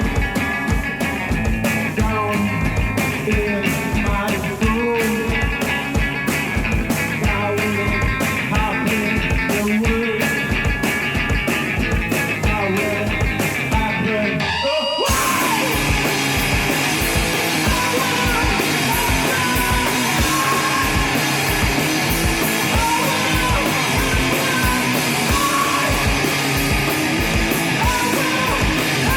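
A live rock band playing loud, distorted punk-style rock with a steady driving beat. The sound cuts out briefly about halfway through, then carries on.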